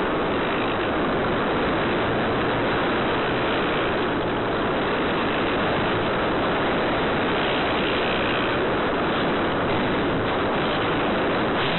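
Steady rushing airflow and motor noise from the onboard spy camera's microphone on an electric foam RC J3 Cub in flight. It is muffled and even, with no clear motor tone.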